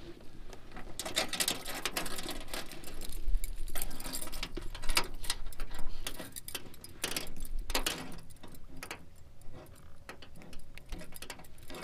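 Fishing tackle clicking and rattling as it is handled: a run of rapid, irregular small clicks, busiest in the first half and thinning out after about six seconds.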